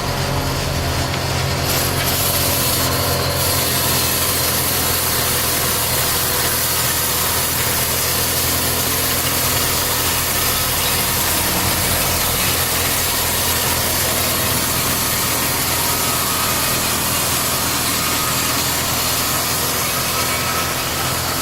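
Powered wood saw cutting through a solid log over the steady hum of its drive. The hissing cutting noise grows louder about two seconds in and then holds steady.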